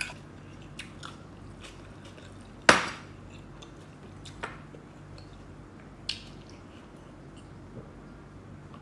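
A person eating with her fingers from a wooden tray, close up: a few sparse, sharp clicks of chewing and food handling, the loudest about three seconds in, over a faint steady hum.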